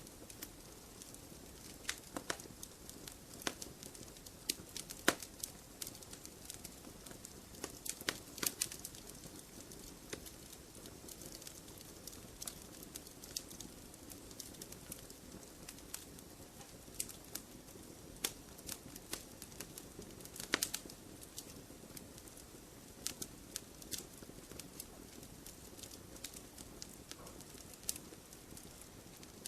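Wood fire crackling, with irregular sharp pops and snaps every second or two, some in quick clusters, over a steady low hiss of burning.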